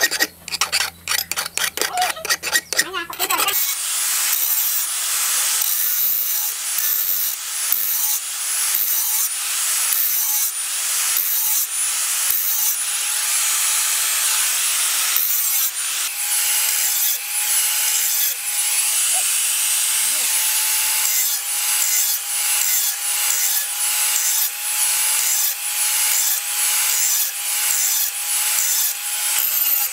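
Quick scratching strokes of a hand tool on a steel knife blank, then an angle grinder starts grinding the clamped blank cut from a motorbike sprocket. Its steady whine swells and dips in a regular rhythm as the disc is worked back and forth along the edge.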